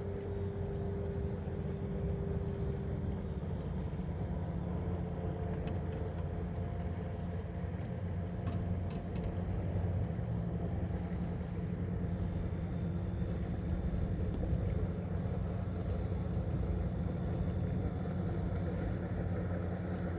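Steady low rumble and hum of a motor, with a fainter higher tone that fades out about three seconds in.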